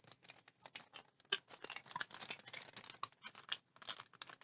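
Irregular light clicks and taps of small phone parts and tools being handled on a repair bench.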